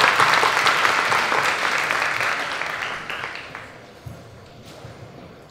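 Audience applause, a dense patter of many hands clapping, which fades away over the first three to four seconds.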